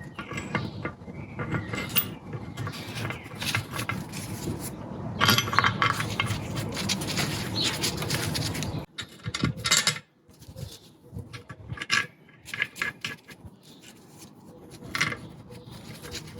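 Irregular metallic clinks, knocks and clatter of metal tools and engine parts being handled and set down.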